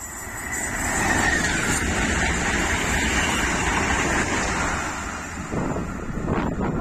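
Renfe series 130 Alvia train with Talgo coaches passing at speed. The sound builds over the first second to a steady rush of wheels on rail as the coaches go by, then eases as it pulls away. Wind gusts on the microphone come near the end.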